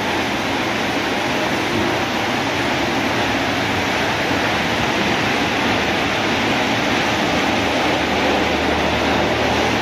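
Automatic car wash running: water and shampoo jets spraying over a car while large rotating brushes scrub it, a steady hiss with machinery hum underneath that grows a little stronger near the end.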